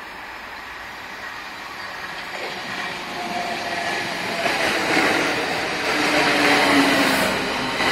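Southeastern Class 395 'Javelin' high-speed electric train approaching and running past close by. The rush of wheels on rail grows steadily louder and is loudest about halfway through as the carriages go by, with a steady humming tone over the noise.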